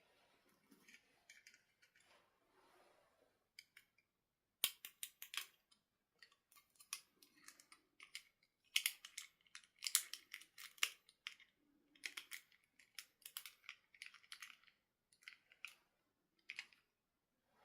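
Hands handling plastic toy packaging and doll parts: clusters of sharp clicks and crinkles, beginning about four and a half seconds in.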